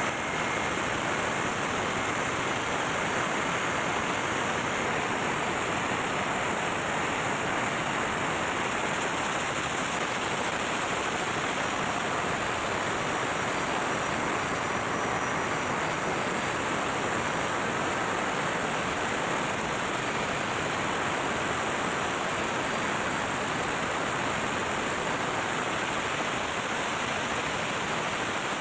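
Engine-room noise of a running MAN B&W auxiliary diesel generator engine: a steady, even rush with no distinct beat or break.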